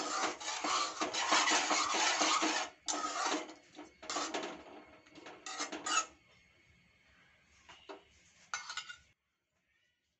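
A spoon scraping and clinking against a cooking pan while the finished onion pachadi is stirred, thinning to a few scattered clinks about six seconds in and stopping about nine seconds in.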